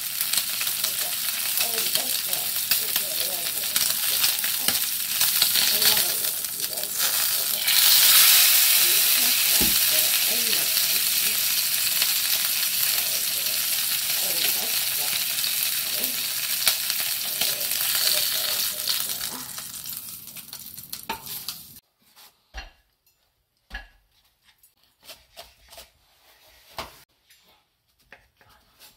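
Beef sirloin steak sizzling loudly and steadily as it sears in a small metal camping pot; the sizzle fades and then stops abruptly about three-quarters of the way through. After that come a few quiet knocks of a knife and tongs on a wooden cutting board as the steak is sliced.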